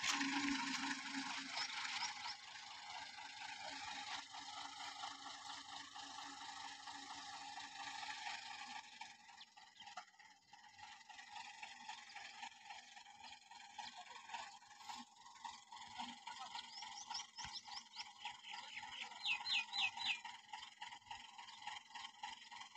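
Faint, steady hum of the tractor-powered borewell drilling rig running. A few quick, high chirps come near the end.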